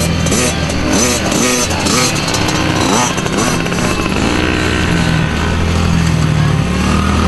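Small kids' mini dirt bike engines running and revving, several at once, their pitch rising and falling and overlapping.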